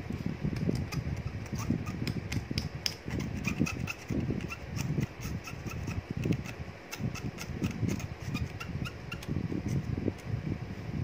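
Hand tools working on an LED bulb's circuit board: irregular scraping and rubbing, with many short, sharp clicks and small squeaks.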